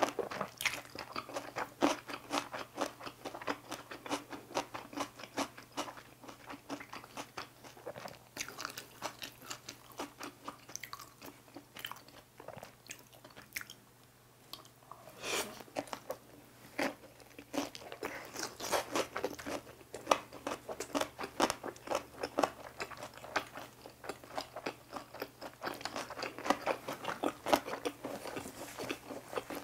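Close-miked chewing with many crisp, rapid crunches: a person eating cucumber kimbap and boiled pork, with a brief quieter pause about halfway through.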